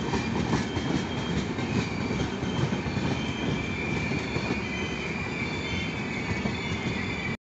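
Superfast Express's passenger coaches rolling past at speed: a steady rumble of steel wheels on rail with sharp clicks and a thin high squeal from the wheels. The sound cuts off abruptly near the end.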